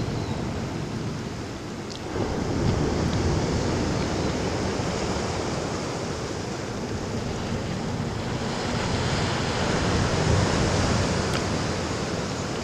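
Wind blowing across the microphone mixed with small waves washing against the shoreline rocks: a steady rushing noise that grows louder about two seconds in and swells again later.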